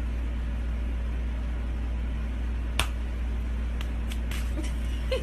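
A steady low hum over a faint noise bed, with one sharp click a little before the middle and a few fainter ticks after it.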